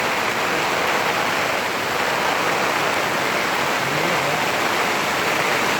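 Steady roar of a waterfall mixed with falling rain.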